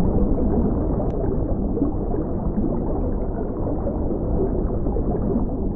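Steady, muffled underwater water noise: a dense low rumble and hiss with no distinct calls or events.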